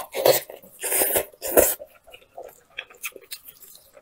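Close-miked eating: loud wet slurps and sucks as braised meat is pulled off the bone with the mouth, for the first couple of seconds, then softer smacking chewing clicks.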